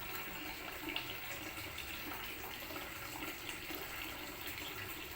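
Water running steadily from a tap, with one brief click about a second in.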